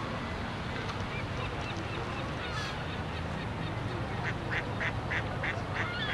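Duck quacking: a run of about six quick quacks, about three a second, near the end, with scattered waterfowl calls before it. A steady low rumble lies underneath.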